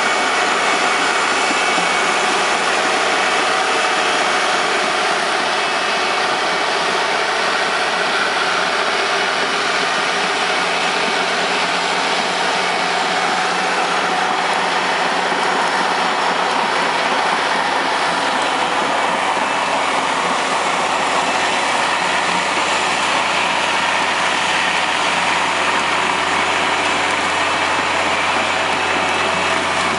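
Tracked drainage-tile plow's diesel engine running steadily as it pulls the plow through the soil, laying plastic field tile.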